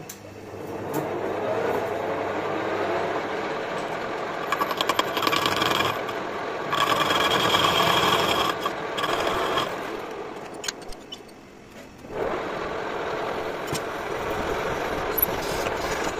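Metal lathe running up to speed, then a lathe tool facing a rusty metal blank in the four-jaw chuck: a harsh scraping cut with a steady whine. About three-quarters through, the sound changes abruptly to a large twist drill boring into the centre of the spinning blank.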